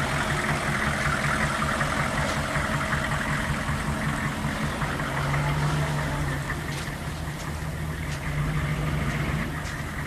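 1998 Hummer H1's V8 turbodiesel engine running at low revs as the truck crawls off-road, swelling briefly about halfway through and easing slightly near the end. A few faint ticks late on.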